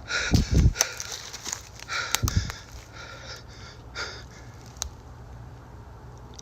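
A man breathing hard in quick, ragged gasps, with a few low thuds in the first couple of seconds; the breathing eases off about halfway through.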